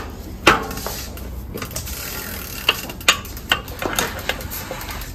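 Metal clicks and scraping of a pedal wrench and a pedal spindle being turned in a bicycle crank arm, with a handful of sharp, irregular clicks.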